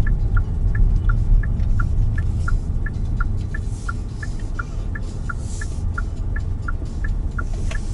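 Car turn signal ticking in a steady alternating tick-tock, about three clicks a second, over the low rumble of road and engine noise inside a Kia Seltos cabin.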